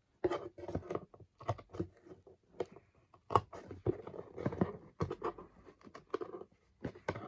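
Cardboard of a shoebox being cut to enlarge a small coin slot, a run of irregular sharp scratching, crunching cuts.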